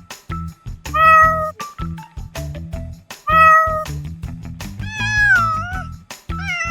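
A cat meowing several times over background music with a steady beat. The later calls bend up and down in pitch.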